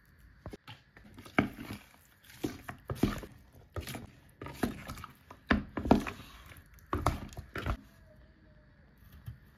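Wooden spoon knocking against the sides of a plastic jug while tossing seasoned raw chicken pieces. The knocks are irregular, about one a second, and stop near the end.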